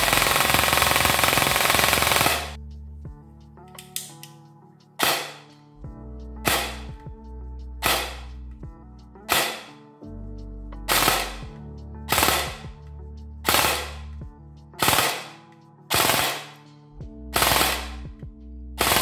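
Rossi Neptune airsoft electric rifle firing: one continuous full-auto string for about two and a half seconds. After a few faint clicks, brief separate firings follow at about one every second and a half. Background music plays underneath.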